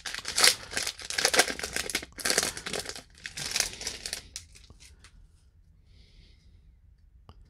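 Foil wrapper of a baseball card pack crinkling and tearing as the pack is opened, a run of rustles that stops about four and a half seconds in.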